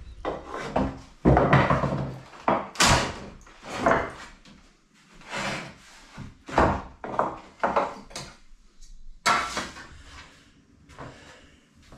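Wooden shutter boards being knocked and clattered, a string of irregular sharp wooden impacts, the loudest near the start.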